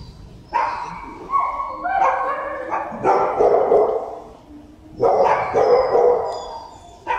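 Dogs in shelter kennels barking repeatedly, several loud barks about a second apart, each trailing off in echo.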